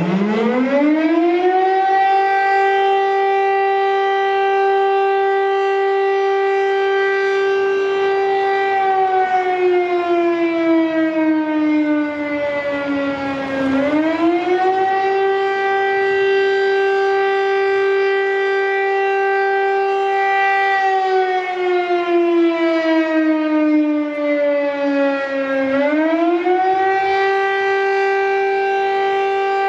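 PTR civil-defence alert siren, modernised by Demay, sounding the French monthly test signal. It winds up at the start to a steady wail, then about 9 s in slides down in pitch for about five seconds and swings back up. The same dip and rise comes again about 21 s in.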